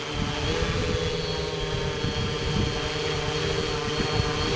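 Quadcopter motors and propellers humming steadily as the drone descends in failsafe return-to-home auto-land, the pitch stepping up slightly about half a second in. A low uneven rumble runs underneath.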